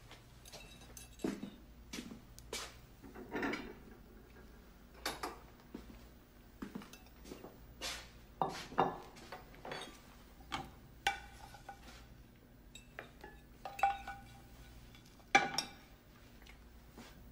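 Forks and plates clinking and scraping as people eat, with plates set down on a wooden counter: scattered sharp clinks at irregular intervals, a couple near the end ringing on briefly.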